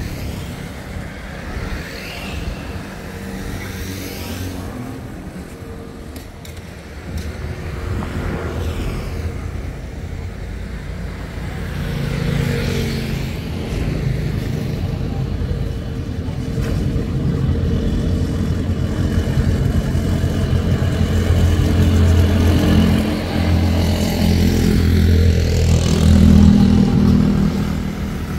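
Road traffic: motorbikes and cars passing one after another, each rising and falling as it goes by, over a steady engine hum that grows louder in the second half.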